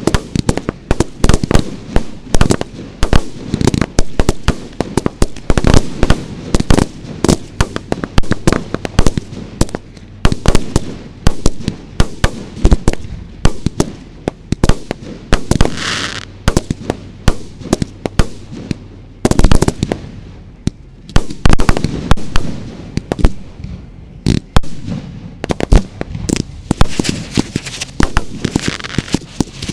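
Fireworks firing from the ground close by: a rapid, unbroken string of sharp bangs and pops, several a second, with a brief rushing hiss about halfway through.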